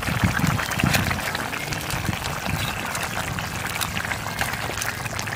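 Thick crab gravy boiling in a pot over a wood fire: a dense, steady run of small bubbling pops, with heavier plops in the first couple of seconds. A ladle stirs through it.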